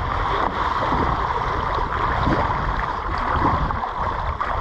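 Shallow seawater splashing and churning around a stingray that is held by its tail and beats its wings in the shallows, a steady rush of water noise.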